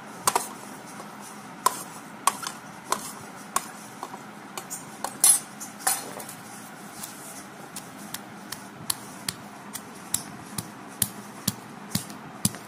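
Sharp clinks and knocks as spices are tipped from a steel plate into a stone mortar, then a stone pestle pounding raw mango and garlic pieces in the stone mortar, short knocks coming about two to three a second toward the end.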